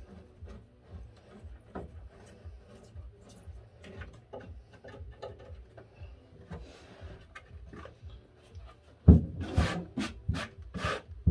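A craft knife cutting and scraping along the edge of thin cork sheet glued to a wooden baseboard, trimming it to shape: a faint, irregular scratching. About nine seconds in, several much louder rubbing strokes follow in quick succession.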